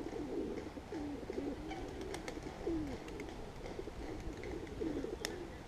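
Pigeons cooing, a string of low, soft coos overlapping one another.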